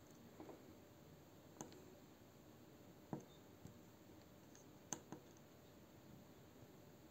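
A handful of faint, sharp clicks spread over several seconds: the TS100 soldering iron's push buttons being pressed to step the set temperature down.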